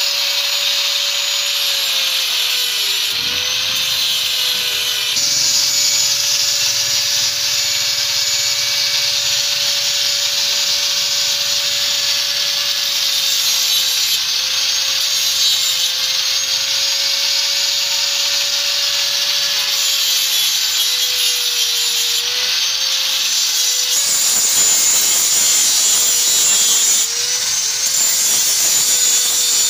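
Angle grinder running, its small disc grinding into the metal shaft of an electric hoist's housing. A steady high whine sags in pitch several times as the disc bites harder, over a continuous hissing grind.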